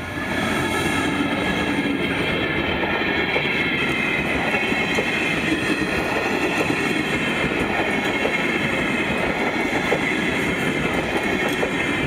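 Passenger coaches of a train hauled by an EMD GT22 diesel locomotive rolling past close by: a steady rumble of steel wheels on rail with many small rail clicks and a high metallic squeal. It fades near the end as the last coach goes by.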